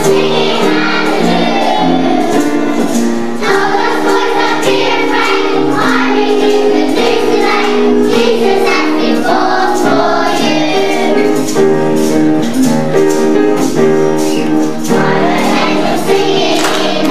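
A group of children singing a song over an instrumental accompaniment of held, stepping notes.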